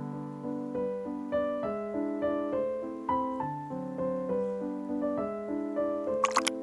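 Background piano music: a slow melody of single held notes over a steady lower line, with a few sharp clicks near the end.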